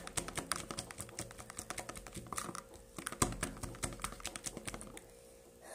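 Glue-based slime being stirred in a container until it firms up: a fast, irregular run of small sticky clicks and taps that stops about five seconds in.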